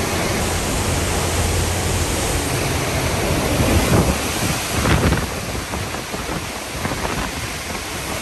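Hurricane wind and driving rain in a continuous loud rush, with wind buffeting the microphone. Gusts surge hardest about four and five seconds in.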